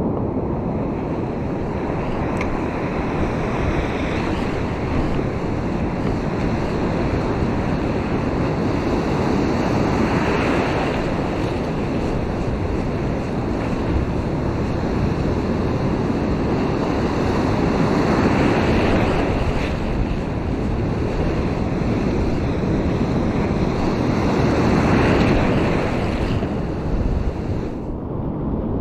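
Heavy sea surf breaking and washing over a rocky reef shelf, swelling louder with each set of waves, with wind buffeting the microphone.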